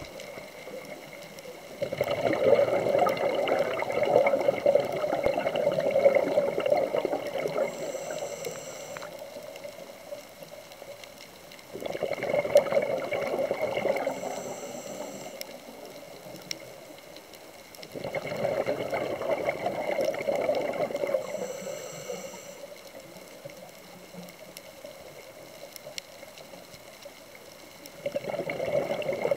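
Scuba diver's exhaled air bubbling out of the regulator underwater, four breaths about eight to ten seconds apart. Each breath starts suddenly and fades over a few seconds.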